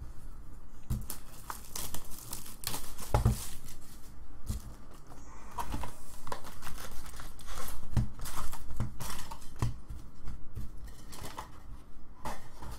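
Plastic shrink wrap torn and crinkled off a trading-card hobby box, then foil card packs rustling as they are pulled out and stacked, with a few light thumps of packs and box on the table.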